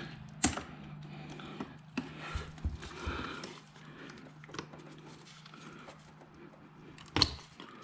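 Plastic air-intake parts being unclipped and handled: scattered small clicks and knocks, with a sharp click about half a second in and another near the end, over a steady low hum.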